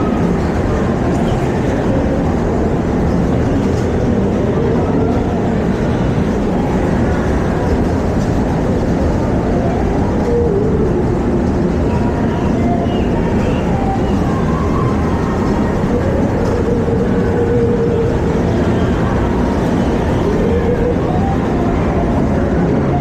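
Amusement ride car running along its track: a steady, loud rumble without a break.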